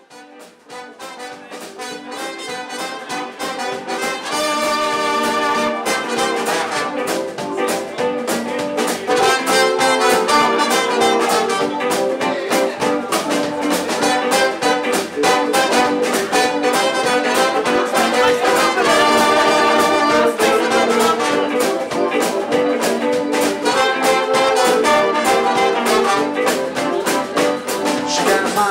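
A live swing band plays an instrumental intro on Hammond organ, electric guitars and drums. The music fades in over the first few seconds, then plays at full level.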